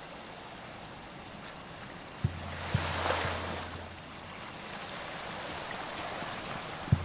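Lakeside ambience: a soft wash of water with a steady high insect whine. About two seconds in, a low steady hum starts, with three dull thumps about half a second apart.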